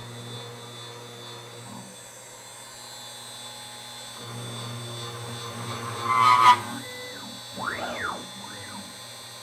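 CNC router spindle running with a steady high whine while a center drill spot-drills a thick aluminium plate, with a short squeal from the cut about six seconds in. Then the axis motors whine up and down in pitch twice as the machine moves.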